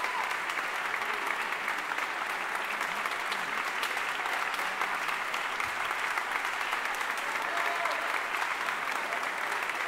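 Large audience applauding steadily, with a few voices calling out.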